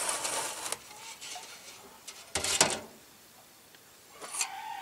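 Metal carburetor part scraping and knocking against the inside of a metal gallon can of carburetor cleaner as it is pushed down into the liquid. There is rubbing at the start and a louder knock about two and a half seconds in.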